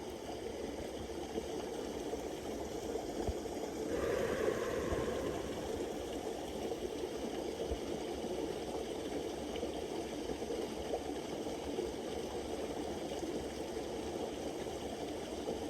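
Creek water flowing steadily, an even rushing noise that swells a little for a couple of seconds about four seconds in.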